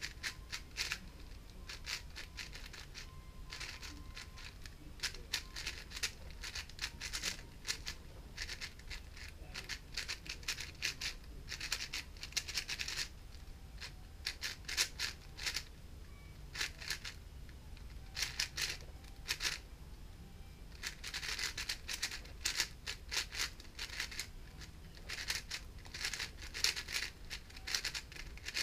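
GAN 460 M 4x4 speedcube being turned fast in a timed solve: rapid plastic clicking of the layers in bursts of a second or two, broken by short pauses.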